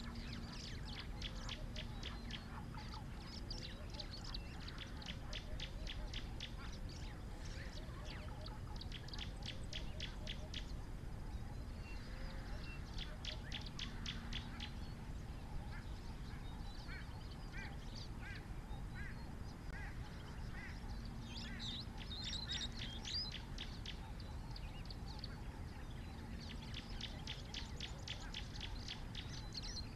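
Birds calling in rapid trills: bursts of quick, high, evenly spaced notes, each lasting a second or two and repeated several times, over a steady low outdoor hiss.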